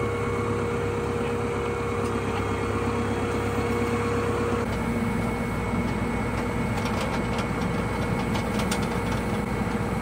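Massey Ferguson 5S.145 tractor's diesel engine idling steadily. About halfway through, a steady hum drops out and the engine note changes, and a few light clicks follow.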